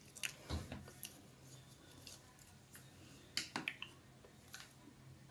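Small sharp clicks and taps of a cosmetic tube and its wand applicator being handled and capped: a quick cluster near the start and another about three and a half seconds in, over a faint steady hum.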